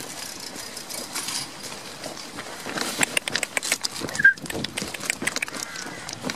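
Goats' hooves clicking and scuffing irregularly on an asphalt path as the goats trot and walk, the clicks thickest in the second half. A brief high chirp about four seconds in.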